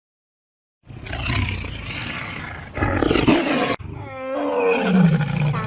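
Lion roaring, starting about a second in: a rough, noisy roar followed by a long call that falls in pitch.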